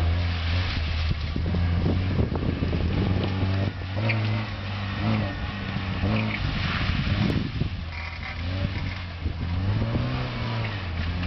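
Porsche 944 S2's 3.0-litre four-cylinder engine, heard from outside the car as it is driven hard, its revs rising and falling again and again.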